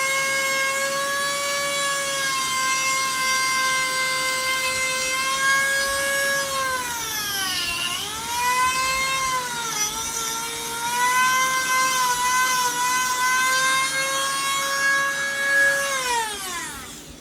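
Dremel rotary tool with a small drum sanding bit running at a high, steady whine while grinding pine, its pitch sagging twice in the middle as the bit bears into the wood. Near the end it winds down and stops.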